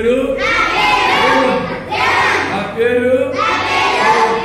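A group of children's voices chanting phrases together in unison, in about three loud phrases separated by short breaths.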